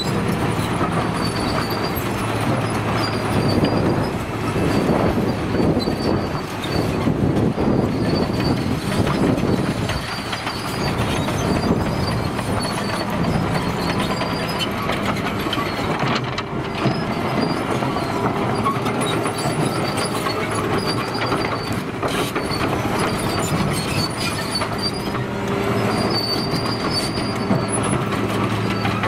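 Caterpillar 953C track loader working: its diesel engine running steadily under load while its steel tracks clank, with a high squeal from the tracks coming and going as it moves and scoops rock and dirt.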